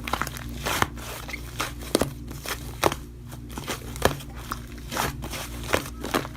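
Slime being squished and pressed by hand, giving many irregular sticky clicks and pops, about two or three a second, over a steady low hum.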